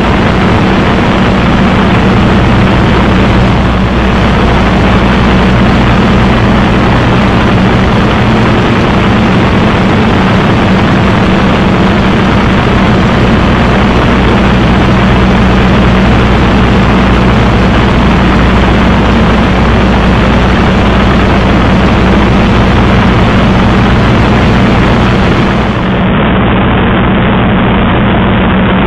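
Spitfire's V12 piston engine running steadily in flight, a loud even drone mixed with airflow noise, heard from inside the cockpit.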